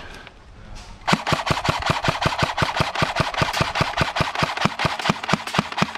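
Airsoft rifle firing a rapid, evenly spaced string of shots, about seven a second, starting about a second in.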